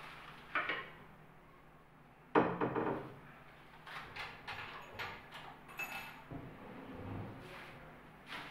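Doors of a laminated plywood wardrobe with Godrej fittings being opened by hand: a knock, then a loud wooden thump about two seconds in. Near the end come a run of small clicks and rattles and a short rumble as an inner drawer slides out on its runners.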